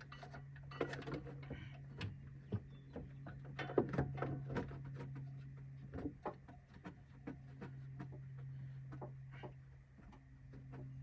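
Scattered light clicks and knocks of tools and parts being handled, over a steady low hum.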